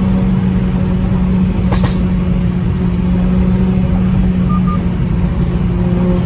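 Mercedes-AMG A45's turbocharged four-cylinder engine running at a steady speed, a constant drone and rumble with one sharp crack about two seconds in.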